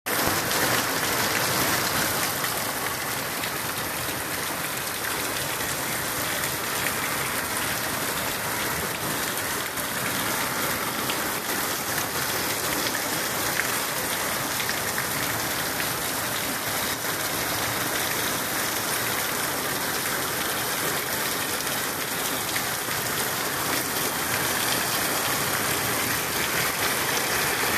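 Steady rain falling, a dense even hiss with many small drop ticks through it.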